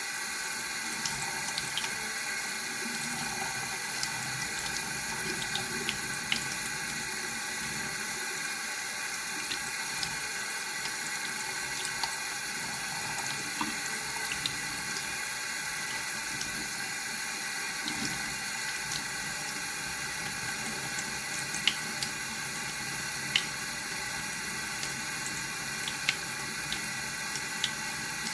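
Tap water running steadily into a sink, with a few brief sharp clicks or splashes scattered through it.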